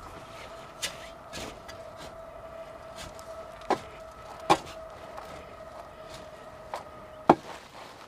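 Knocks and bumps from potting up trees in containers: pots, soil and tools being handled, several sharp hits with the loudest about halfway through and near the end. Under them runs a steady faint hum that stops near the end.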